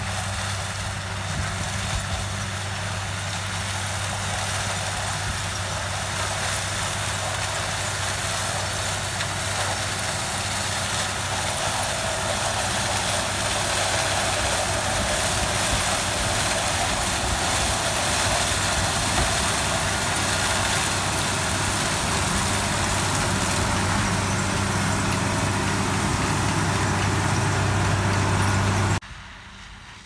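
Broussard 223 wholestalk sugarcane harvester's diesel engine running steadily under load as it cuts through standing cane, with a steady low engine hum and a rushing mechanical noise, growing gradually louder as it comes closer. About a second before the end the sound drops abruptly to a much fainter, distant machine with wind.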